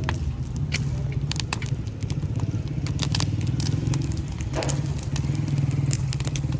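Open wood fire crackling, with many sharp pops scattered through it, over a steady low rumble.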